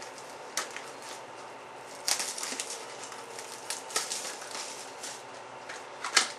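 Trading cards and their packaging being handled and slid about: scattered dry rustles and light clicks, the sharpest about two seconds in and again near the end.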